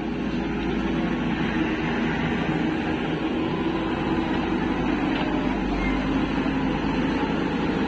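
JCB 3DX backhoe loader's diesel engine running steadily, an even mechanical hum.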